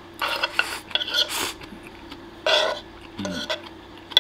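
Close-up eating sounds as the last forkfuls of peperoncino pasta go into the mouth: several short noisy bursts from the mouth, the loudest about two and a half seconds in, and a brief low throat sound just after three seconds.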